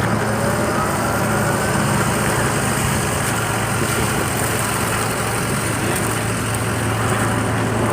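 A motor vehicle's engine idling: a steady low hum.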